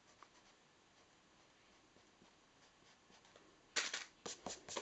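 Eraser rubbing faintly on drawing paper, then, near the end, a quick run of loud paper rustles and brushing strokes.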